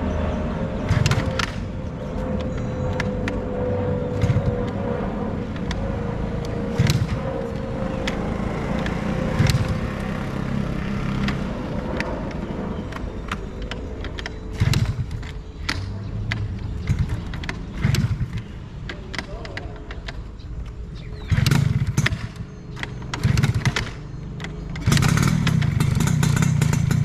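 Suzuki RC100's two-stroke single-cylinder engine running at idle with short throttle blips every few seconds, then held at higher revs near the end.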